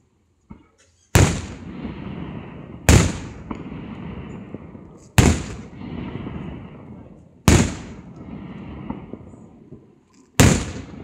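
Aerial firework shells bursting overhead: five loud bangs about two seconds apart, each followed by a long rolling rumble that fades before the next.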